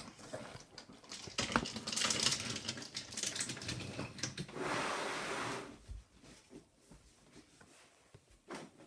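Toy train track pieces being handled: a run of quick clicks and clatters, then about a second of rustling near the middle, then a few faint clicks.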